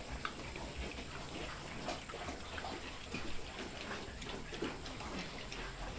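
A group of newly weaned piglets eating at a trough: a steady scatter of small clicks of chewing and slurping, with the odd brief low grunt.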